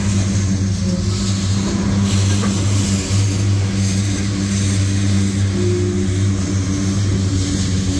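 Covered hopper cars of a freight train rolling past at close range: a loud, steady rumble of steel wheels on the rails.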